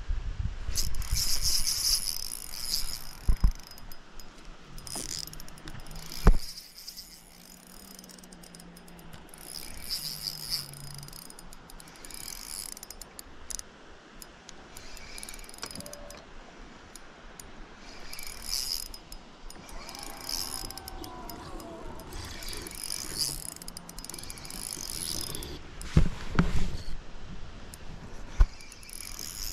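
Shimano Stella spinning reel being cranked in short spells with pauses between them, its gears and line roller whirring as line is wound in. A few sharp knocks from the rod and reel being handled.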